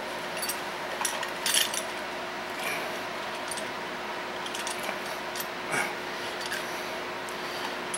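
Scattered small metallic clicks and clinks of hand tools such as nippers working on a wire connector, the sharpest about a second and a half in, over a steady background hum.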